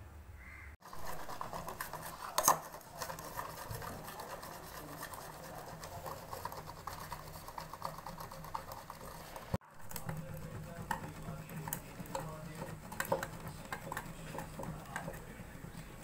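A bar of soap being grated on a stainless steel box grater over a steel bowl: a continuous rasping scrape with small ticks of metal, and a sharper knock about two and a half seconds in.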